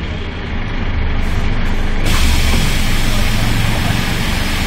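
Karosa B931 city bus's Renault MIHR diesel engine running as the bus drives along, heard from inside the passenger cabin. About two seconds in, a steady hiss comes in suddenly and carries on over the engine.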